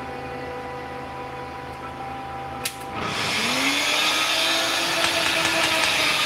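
NutriBullet blender motor starting about three seconds in, its pitch rising briefly as it spins up and then running steadily, blending chunks of pineapple and mango with water. Before it starts there is a steady hum and a single click.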